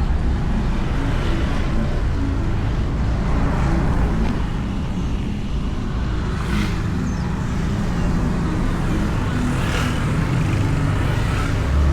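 Motorbike riding through traffic, heard from a microphone inside the rider's helmet. A steady low engine and road rumble runs under a haze of wind noise, with two brief hissing swells about six and a half and ten seconds in.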